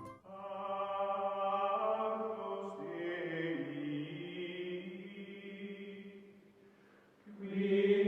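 Background music of sustained, choir-like chanted chords, held long and shifting in pitch now and then. It fades out about six to seven seconds in, and a new swell starts near the end.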